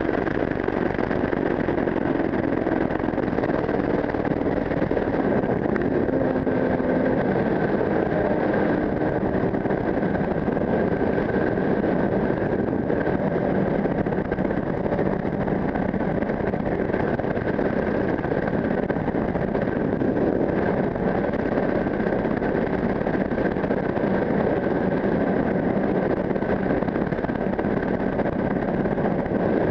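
Sport motorcycle riding along, its engine note drifting slowly up and down under a steady rush of wind on the helmet-mounted microphone.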